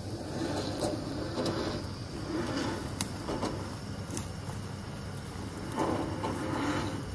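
Electric vehicle winch running steadily, reeling in its line through a snatch block to drag a fallen tree off the trail, with a few clicks.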